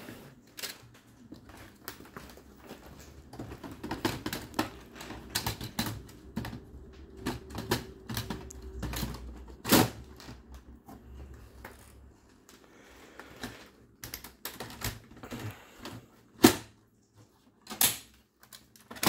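Irregular plastic clicks, rattles and knocks from parts of an Epson AL-M320DN laser printer being handled and fitted inside its open body, with three louder knocks about ten seconds in and near the end.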